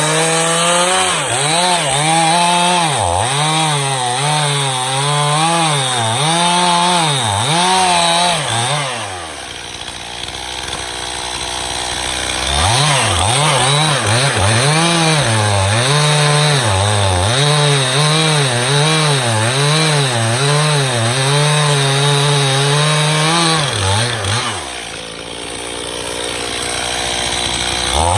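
Stihl MS291 two-stroke chainsaw cutting through a hickory firewood block, its engine speed rising and falling about once a second as it labours under load in the tough wood. Twice, about nine seconds in and again near the end, it drops back to a quieter idle for a few seconds before going back into the cut at full throttle.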